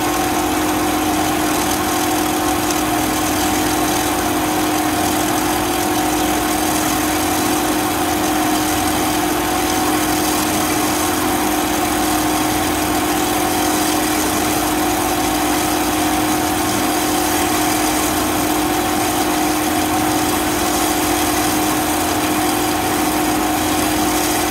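Metal-cutting bandsaw running and sawing steadily through a solid round 304 stainless steel bar: an even, unchanging hum with two held tones over the hiss of the cut.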